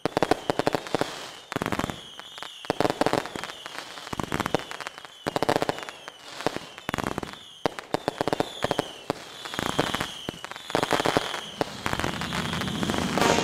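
Fireworks going off in quick succession: repeated bangs and crackling, with short falling whistles.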